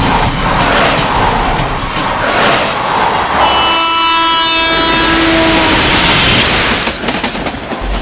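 Train running at speed with a steady rushing rumble; about three and a half seconds in, the locomotive's horn sounds one long blast lasting about two seconds.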